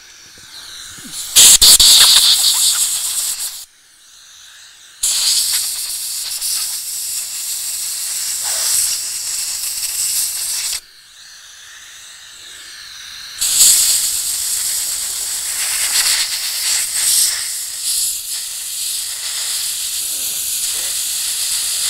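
Compressed-air blow gun hissing in three long blasts, the first short and the others several seconds each, blowing rinse water out of a cleaned wheel bearing.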